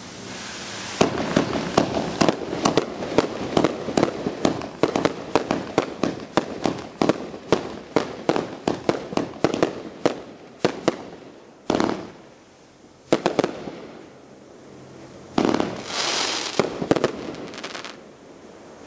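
Dominator DM5284 Jacked Up 500g 30-shot fan cake firing: a rapid run of sharp launches and bursts, about three a second, starting about a second in. Then come two louder single reports, and near the end a denser rush of noise and pops from the strobe stars and peonies.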